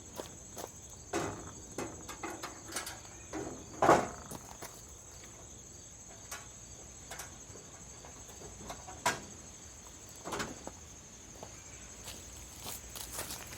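Scattered light knocks and clicks, the loudest about four seconds in and two more near nine and ten seconds, over a faint steady high-pitched tone.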